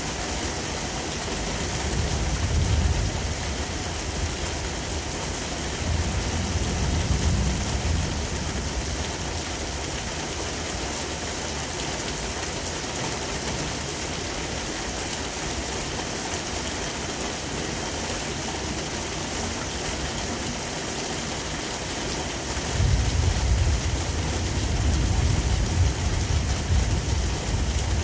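Heavy thunderstorm rain falling in a steady hiss, with low rumbles of thunder about two and six seconds in and a longer one near the end.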